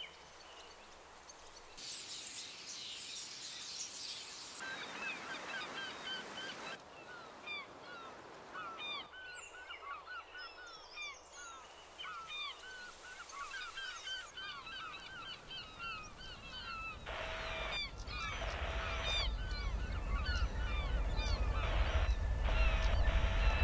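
Many birds calling in short, repeated chirps, with patches of hiss that come and go. A low rumble swells through the second half and grows louder toward the end.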